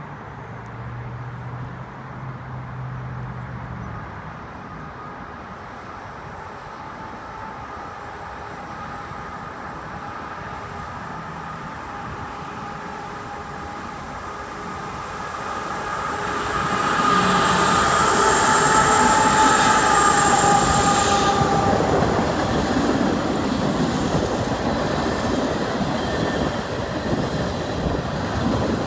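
CN freight train approaching and passing, growing steadily louder until it is close about 17 seconds in. A high, steady squeal rides over the rolling noise for a few seconds as it passes.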